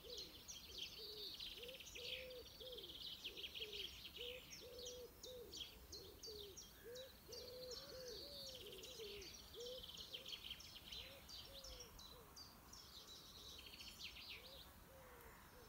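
Garden birdsong: small birds chirping in quick, high runs while a pigeon coos over and over in low, rounded notes about two a second. Both die away near the end.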